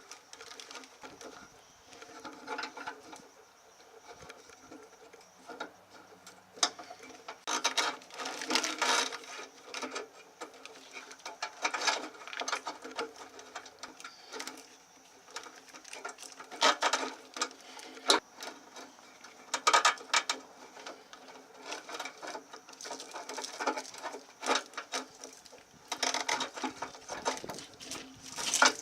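Irregular rustling, clicking and rattling of a truck's wiring harness and its plastic loom being pulled and fed out of the chassis, with louder flurries every few seconds.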